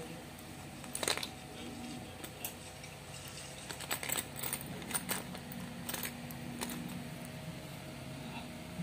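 Small metal airgun parts and pellets clicking and rattling against a plastic compartment organiser box as a hand picks through it. There are a handful of sharp clicks, the loudest about a second in, over a low steady hum.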